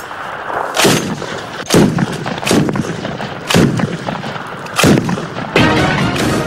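A 12.7 mm Kord heavy machine gun fired by hand: about six loud shots, roughly a second apart, each trailing off into an echo.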